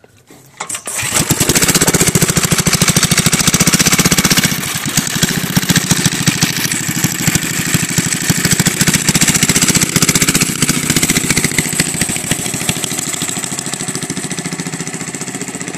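Vintage go-kart's 5 hp Briggs & Stratton flathead single-cylinder engine starting about a second in, then running loudly as the kart pulls away. Its sound fades steadily as the kart drives off into the distance.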